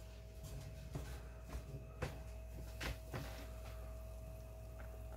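A few light clicks and knocks of a nonstick skillet and silicone spatula as scrambled eggs are pushed out of the pan onto a tortilla, over a steady low hum.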